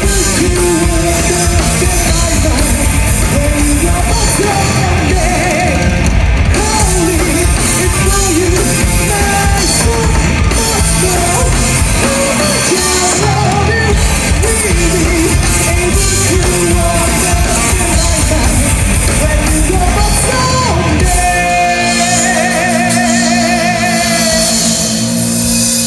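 Live rock band playing: a singer over electric guitars, drums and keyboard. About 21 seconds in the singing stops and a held, wavering lead line carries on over a thinner backing.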